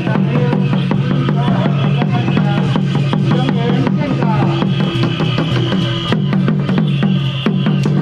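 Lion dance percussion: a big drum and cymbals beating a fast, dense rhythm, with a steady low hum underneath.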